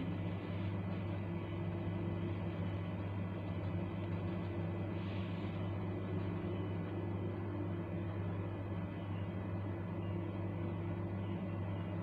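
Steady low machine hum, an unchanging drone.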